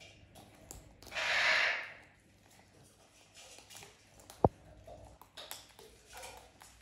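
Parrots feeding from a metal seed tray: small clicks of beaks and seed. A breathy hiss lasting about a second comes about a second in, and one sharp tap about halfway through.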